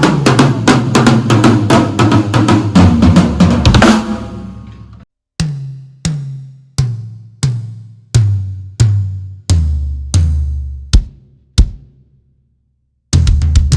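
1994 Tama Rockstar drum kit with fresh, not yet tuned heads: a fast burst of full-kit playing, then single strokes on the drums about two-thirds of a second apart, each ringing out and stepping down in pitch from high to low. After a short silence near the end, fast playing starts again.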